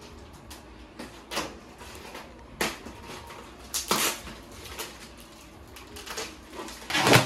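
Heavy plastic wrapping on a rolled mattress crinkling and crackling as it is handled and cut open with scissors, in irregular short bursts, the loudest just before the end.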